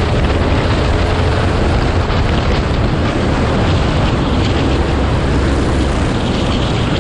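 Racing kart engine running steadily under way, largely covered by heavy wind rush on the onboard camera's microphone.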